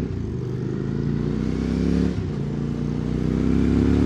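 QJ Motor SVT650X motorcycle engine running through an Arrow Racetech slip-on exhaust while riding. Its pitch sinks over the first two seconds, dips briefly, then rises again as the engine speed climbs.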